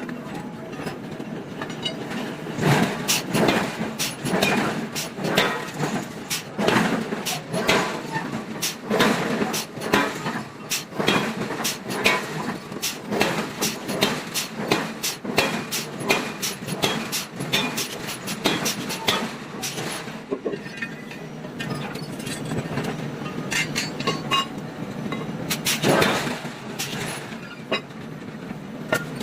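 Hammer blows on hot iron while a square block is forged flat: rapid, irregular metallic strikes, about two a second, over a steady background din. The blows thin out about two-thirds of the way through, with one last heavy strike near the end.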